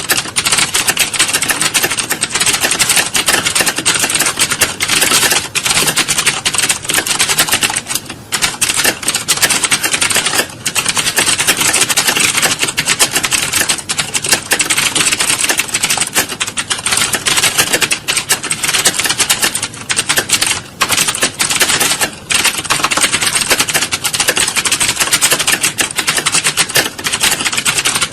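Many computer keyboards typed on at once, as in an exam hall: a dense, continuous clatter of key clicks with a few brief lulls.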